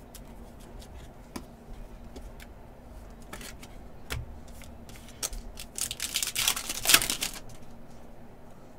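Trading cards and their packaging being handled: light clicks and taps of cards, then a louder patch of crinkling about six to seven seconds in, as a Panini Contenders basketball pack's wrapper is opened and the cards are pulled out.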